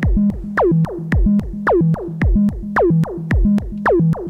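Make Noise XPO oscillator in a Eurorack modular synth being sequenced: a low note pattern stepping between a few pitches, with sharp falling pitch drops about twice a second and fast ticks between them.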